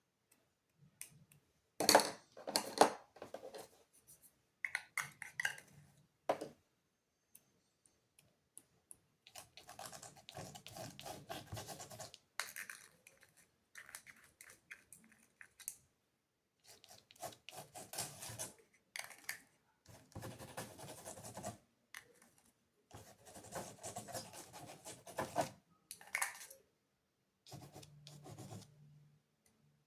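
Painting strokes scratching on the painting surface in short bursts of quick back-and-forth strokes with pauses between them, loudest about two seconds in.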